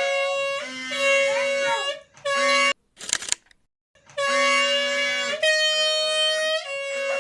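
Music of sustained, reedy horn-like held notes, broken off abruptly by short silences twice.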